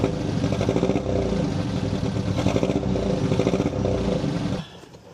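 Classic American car's engine running at idle, heard at the tailpipe, with a rapid, uneven exhaust beat. It cuts off sharply about four and a half seconds in.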